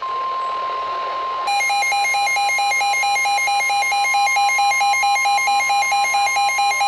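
NOAA Weather Radio's steady 1050 Hz warning alarm tone, the signal that a warning message follows. About a second and a half in, the weather radio receiver's own electronic alert joins it: a fast-repeating pattern of beeps layered over the tone.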